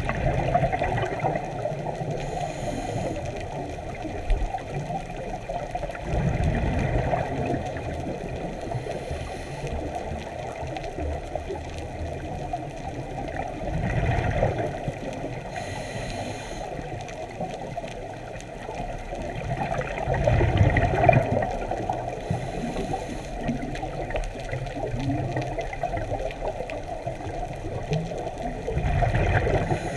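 Scuba diver breathing through a regulator underwater, heard muffled through a camera housing: a steady low water rumble, with a louder gush of exhaled bubbles about every seven seconds.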